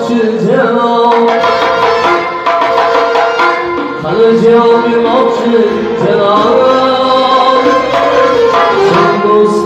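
A male singer performs a melismatic song, his voice gliding and bending between notes. He is backed by accordion and hand percussion and amplified through a PA system.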